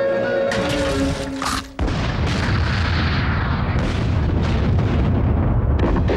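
Music breaks off, and just before two seconds in a loud explosion booms, rumbling on for several seconds with crackling bursts through it.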